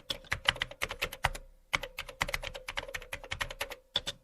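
A rapid, irregular run of sharp clicks, several a second, with short gaps, starting and stopping abruptly, like keyboard typing.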